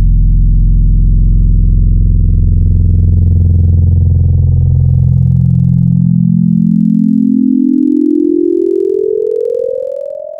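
Low, loud synthesizer drone from the film's score, its pitch gliding steadily upward through the second half, then fading out near the end.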